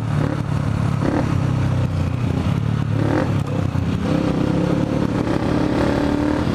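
Motorcycle engine running while riding, with wind noise on the microphone. A higher, steady engine note comes in about four seconds in as it speeds up.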